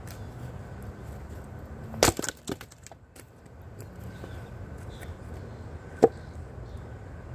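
An axe strikes a firewood round on a chopping block and splits it, with a few smaller clatters of the pieces falling just after. About four seconds later comes a single sharp knock as a split piece of wood is set down on the block.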